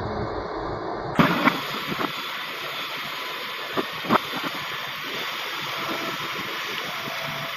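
Heavy machinery at work: a low engine rumble that cuts off abruptly about a second in, giving way to a steady rushing hiss with a handful of sharp clanks, two close together early on and two more a little later.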